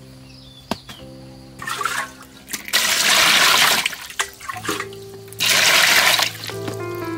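Water splashing and churning in an aluminium basin of small octopuses being washed, in two loud rushes about a second long each; soft background music under it.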